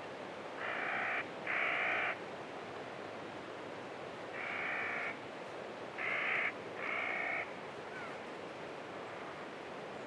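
A large bird gives five harsh calls of about half a second each: two close together, a single one, then two more. Behind them runs a steady hiss of desert ambience.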